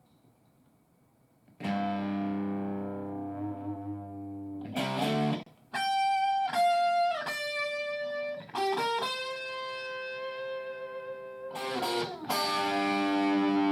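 Electric guitar played through a BOSS Nextone Stage amplifier. After a second and a half of near silence a chord rings out, then a quick strum, a run of single notes sliding between pitches, a long held note, and another ringing chord near the end.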